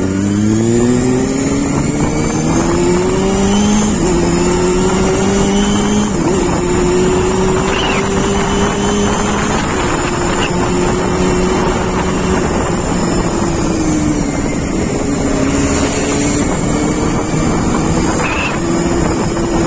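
Honda motorcycle engine pulling through the gears while riding, its pitch climbing and dropping back at each shift (about 4, 6 and 10 seconds in), easing off and then picking up again near the end, over steady wind and road noise.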